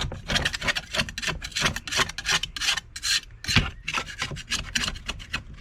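Quick, repeated hand-scraping strokes over metal, taking stripper-softened, bubbled paint off an old tool.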